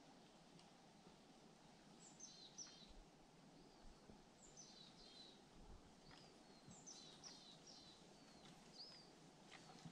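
Near-silent forest ambience with a small songbird singing short phrases of high, falling chirps, four or five times.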